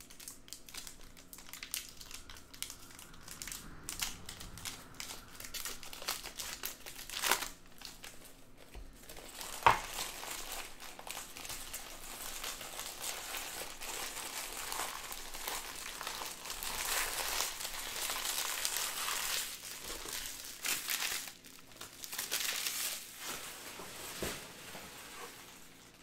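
Plastic wrapping crinkling and tearing as sealed trading-card packs and boxes are opened, with scattered clicks and two sharp knocks, the louder about ten seconds in.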